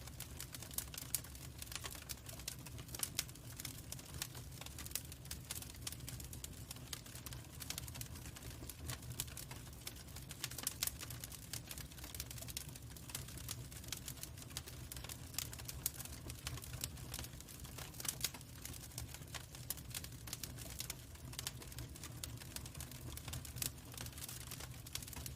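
Log fire crackling, with irregular sharp snaps and pops over a steady low rumble.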